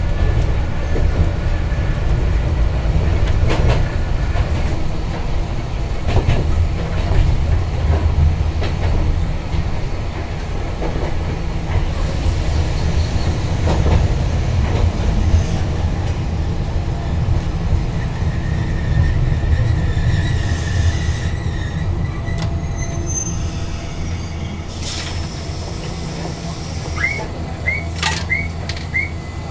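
Randen tram with nose-suspended traction motors, heard from the driver's cab: a steady low running rumble with scattered clicks, growing quieter in the second half as it slows to a stop. Four short high chirps come near the end.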